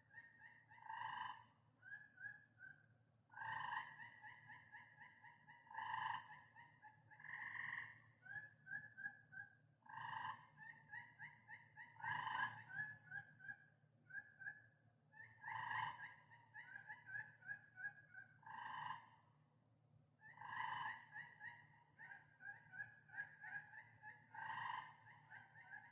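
Tree frogs calling in a night chorus: fast runs of short, repeated chirping notes, broken every two seconds or so by a louder, lower call. A faint steady low hum runs underneath.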